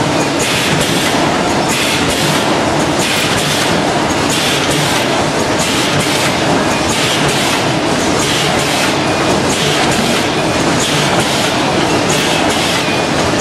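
Automatic packaging line running: a vertical form-fill-seal bagging machine and its conveyors make a loud, continuous mechanical clatter, with a sharper rattle recurring about once a second as the machine cycles.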